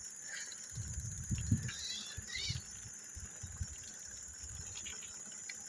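Insects chirring steadily at a high pitch, under irregular low thumps and rumbles.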